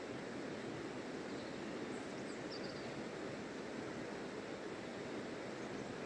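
River water flowing steadily, an even, constant rush, with a few faint high bird chirps about two seconds in.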